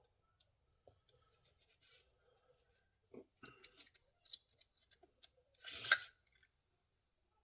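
Light metallic clicking and scraping as the thin steel rails of a three-piece piston oil ring are worked off an LS piston by hand, with a louder scrape about six seconds in.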